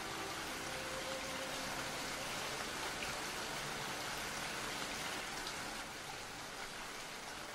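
Steady rain, an even hiss with a few faint drop ticks. The last notes of background music fade out in about the first second, and the rain gets slightly quieter about six seconds in.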